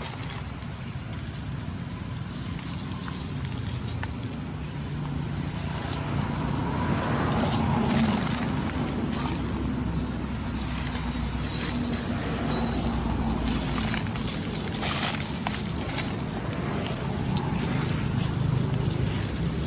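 Outdoor ambience: a steady low engine rumble under a steady high-pitched hiss, with scattered faint clicks.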